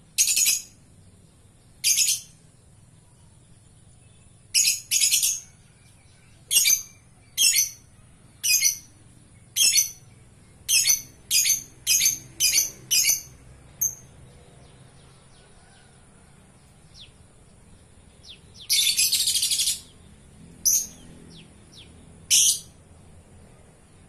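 Lovebird giving loud, shrill, short calls in an irregular series, about fifteen in all. Near the end comes one longer call lasting about a second, followed by two more short ones.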